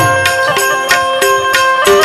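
Instrumental passage of a Gujarati devotional bhajan: a harmonium plays a melody of held notes over a quick, steady percussion beat with jingling.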